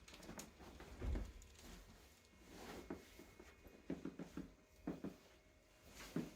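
Chiropractic adjustment: a low thump about a second in, then scattered short clicks and pops, with a cluster of them around four seconds in.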